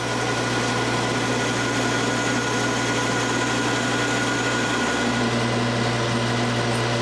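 Metal lathe running steadily with a constant motor hum while parting off a freshly turned steel shaft.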